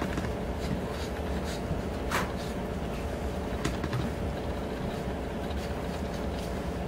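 Four-week-old English Mastiff puppies playing, with scattered light clicks and knocks from paws and toys, the sharpest about two seconds in, over a steady low hum.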